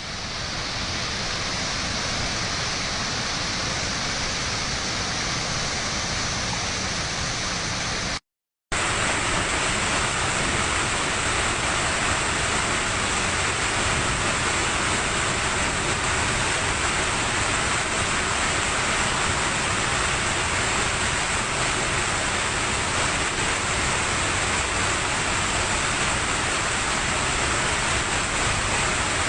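Waterfall: a steady rush of falling water. It drops out completely for about half a second around eight seconds in, then comes back with a slightly brighter hiss.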